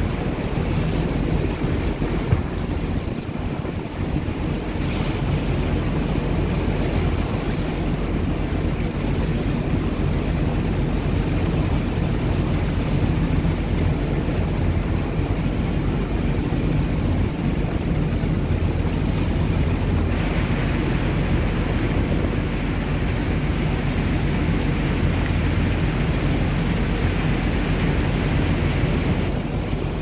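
Wind buffeting the microphone over open sea, with the wash of waves: a steady, low rumble and hiss.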